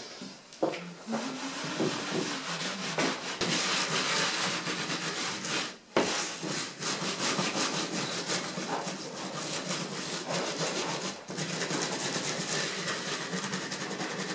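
A stiff bristle brush scrubbing sawdust back and forth over a leaded stained-glass panel. It makes a continuous scratchy rubbing, broken by two brief pauses, about six and eleven seconds in.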